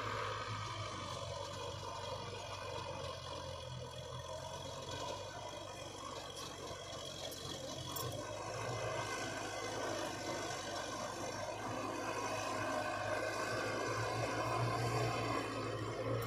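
Heavy diesel earthmoving machinery, a bulldozer or dump truck, running steadily, growing a little louder toward the end.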